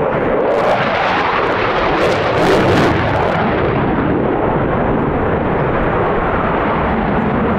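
Dassault Rafale fighter's twin Snecma M88 jet engines running loud and steady in afterburner through a display manoeuvre, with a harsher, louder stretch about two to three seconds in.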